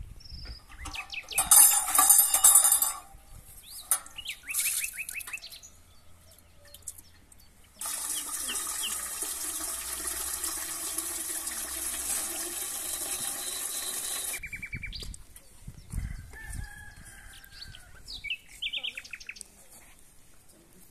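Tap water pouring into a metal samovar for about six seconds, starting abruptly about eight seconds in and cutting off suddenly. Earlier, a loud bird call about two seconds in; small birds chirp now and then.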